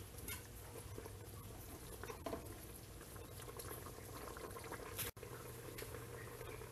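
Goto, a rice porridge, simmering in a pot: a steady low bubbling with small pops, and a brief knock about two seconds in. The sound cuts out for an instant about five seconds in.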